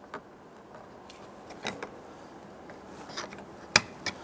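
A small pocket screwdriver prying at a plastic trim cover on a door panel: light scrapes and small clicks, then one sharp plastic click near the end as the cover pops free.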